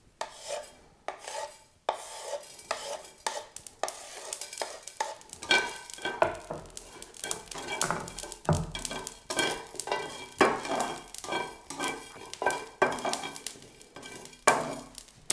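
Whole dry spices (coriander seed, cumin, black peppercorns, dried chili) being dry-toasted in a very hot, oil-free black iron pan. A knife sweeps them off a wooden board into the pan, then a slotted spatula stirs and scrapes them around, in a run of irregular scraping and rattling strokes.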